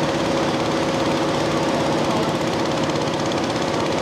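Small Honda gasoline engine on a portable power unit running steadily at a constant speed.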